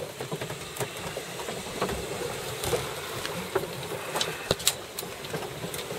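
Sailing yacht under way on self-steering: a steady rush of water and wind with scattered, irregular clicks and knocks from the boat as it rolls.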